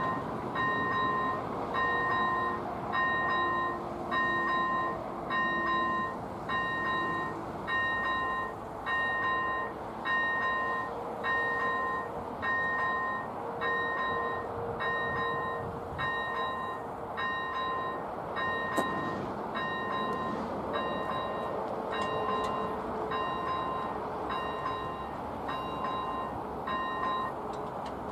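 Railway level-crossing warning bell ringing in a steady series of dings, a bit more than one a second, signalling an approaching train. It stops about 27 seconds in, once the crossing barriers are down.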